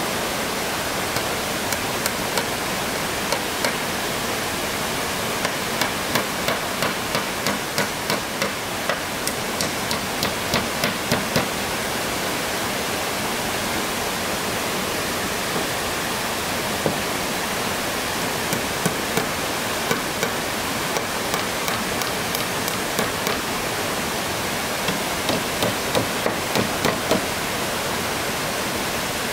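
Hammer driving nails into wooden roof planks: a run of sharp knocks at about two a second that grows louder, then scattered blows and another quick run near the end, over the steady rush of flowing stream water.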